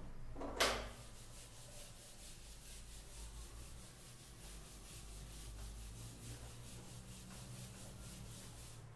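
Whiteboard duster wiped back and forth across a whiteboard: a faint, steady rubbing made of quick repeated strokes. A single short, sharp sound stands out just under a second in.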